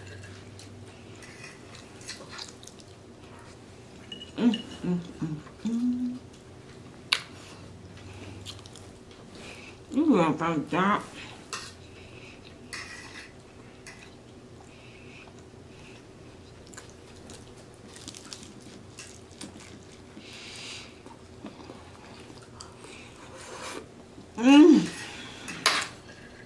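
A plastic fork scraping and clicking on a plate while eating, with some chewing. A few short wordless vocal sounds come about 5, 10 and 25 seconds in.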